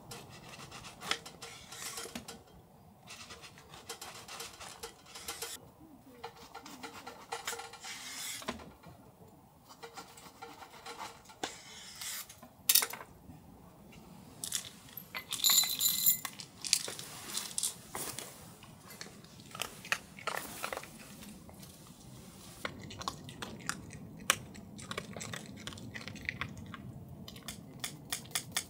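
Tableware and cookware being handled: irregular clinks, taps and scrapes of utensils on dishes and pans, mixed with crunching, and one brighter ringing clink about halfway through.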